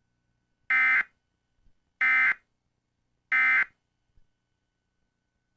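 Three short bursts of Emergency Alert System SAME end-of-message data tones, each about a third of a second long and about a second and a quarter apart. They signal that the alert message has ended.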